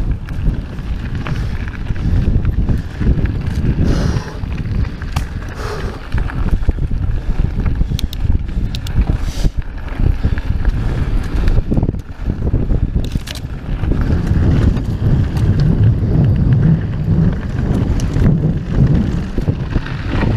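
Santa Cruz Megatower full-suspension mountain bike rattling and rumbling down a dry dirt trail at speed, its tyres on dirt and gravel giving a steady low rumble with scattered sharp clicks and knocks. Wind buffets the microphone throughout.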